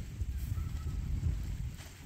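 Wind buffeting the microphone: a gusty low rumble that rises and falls, with a faint thin whistle about half a second in.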